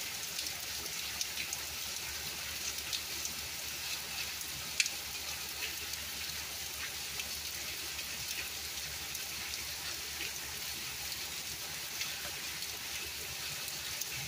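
Steady rain falling on a wet brick patio: an even hiss with many small scattered drop ticks. One sharper, louder tick comes just under five seconds in.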